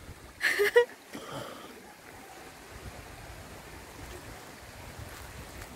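Shallow river water flowing steadily over stones, with a short burst of sound about half a second in.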